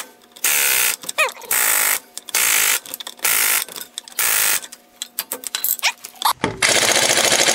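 Impact wrench running lug nuts onto a wheel in a series of short trigger bursts of about half a second each, then a longer burst of hammering near the end.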